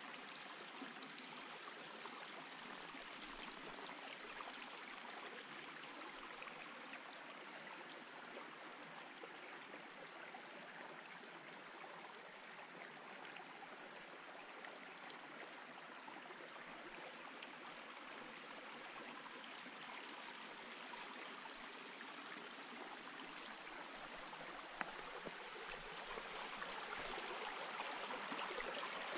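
Mountain stream water flowing in a steady rush, growing somewhat louder in the last few seconds.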